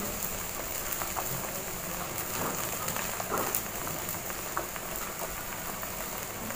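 Broth boiling in a wok: a steady bubbling hiss with scattered faint pops.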